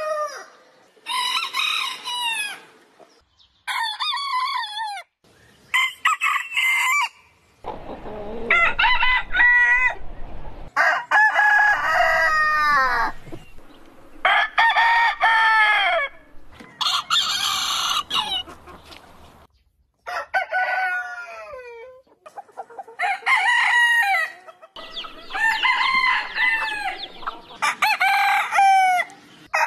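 Roosters crowing one after another, about a dozen crows from several different birds, each a loud call of a second or two that drops in pitch at its end, with abrupt breaks between them.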